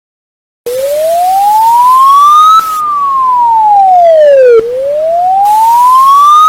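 Siren wailing: a single tone that starts about half a second in, sweeps slowly up for about two seconds and back down for about two seconds, then rises again.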